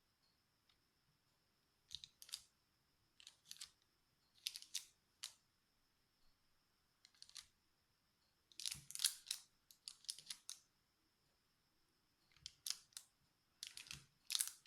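Knife blade cutting through a slab of kaju katli (cashew fudge), with short, sharp scraping strokes against the surface beneath, coming in irregular pairs and clusters.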